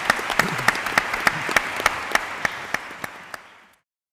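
Audience applauding in a hall, many hands clapping at once. The clapping thins out about three seconds in, then the sound cuts off abruptly into silence.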